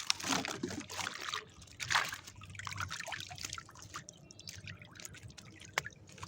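Water trickling and splashing irregularly, with a single sharp click near the end.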